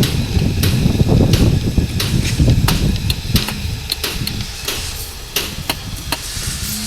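Hammering on a construction site: irregular sharp blows, about two or three a second, over a low rumble.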